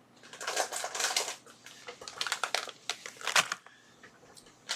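Plastic packets of DuPont jumper cables being handled: crinkling and clicking in irregular bursts, with a sharp click a little over three seconds in, then a quieter stretch near the end.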